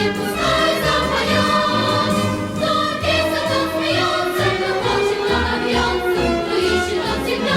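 Music: a choir singing with instrumental accompaniment over a steady bass.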